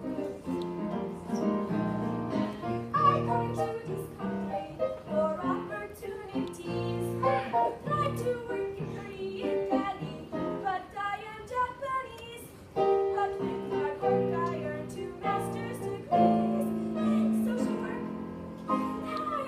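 A show tune with piano accompaniment and young voices singing.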